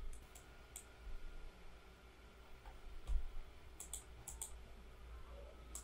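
Computer mouse clicking about eight times, several of the clicks coming in quick pairs.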